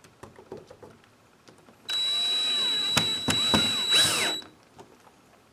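A handheld power drill runs for about two and a half seconds, starting about two seconds in, with a high whine whose pitch wavers as the speed changes under load, as it works into the sliding door's frame. Light handling clicks come before it.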